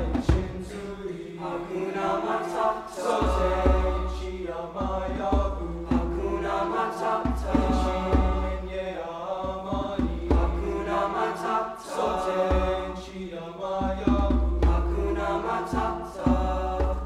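Choir singing a Swahili song with piano and hand drum accompaniment. A deep low note pulses every two to three seconds under the voices.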